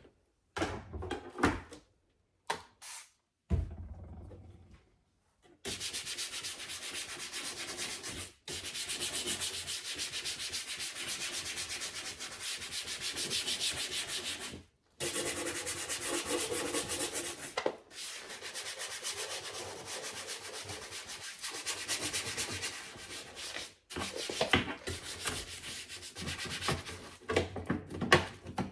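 A brush scrubbing the dishwasher's front panel in rapid back-and-forth strokes. The scrubbing runs in long stretches with short breaks and starts a few seconds in, after some scattered knocks.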